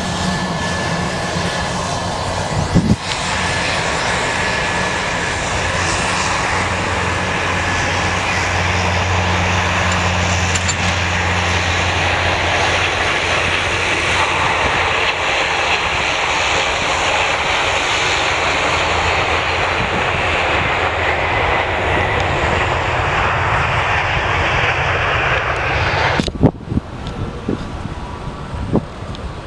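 Jet airliner's engines, loud and steady with a low hum underneath, which break off abruptly about 26 seconds in, leaving a quieter noisy background.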